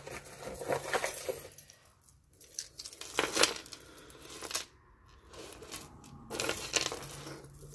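Tangled metal costume jewelry (chains, necklaces and brooches) clinking and jangling as it is pulled apart and set down on a wooden tabletop, in irregular light clicks with a few louder clatters.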